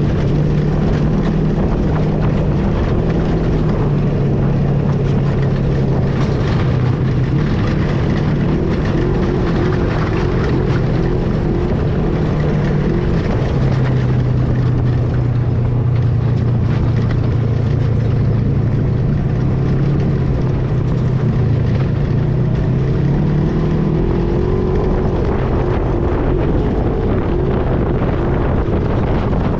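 Vehicle engine running steadily while driving, its pitch dropping and rising a few times as the speed changes, with wind rushing over the microphone.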